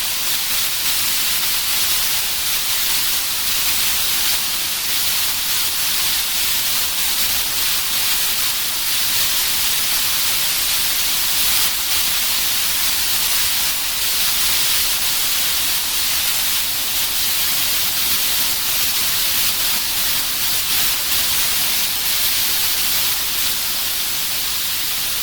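Analog TV static: a steady, even hiss, strongest in the highs, with a faint fine crackle running through it.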